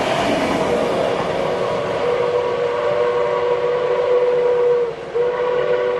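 Steam locomotive whistle blown in a long, steady chord-like blast, breaking off briefly near the end and sounding again, over the continuous rumble of a passing train.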